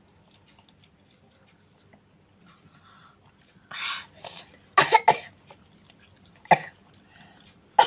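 A person coughing in short, sharp bursts: a breathy heave about four seconds in, two coughs close together just after, and another about a second and a half later. The coughing comes from the chilli heat of very spicy fried rice.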